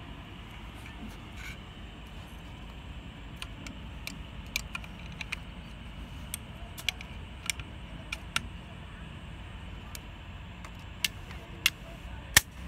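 Metal parts of a Type 81 assault rifle clicking and clacking as it is reassembled by hand: scattered sharp clicks, with the three loudest in the last two seconds. Under them, a steady low background rumble.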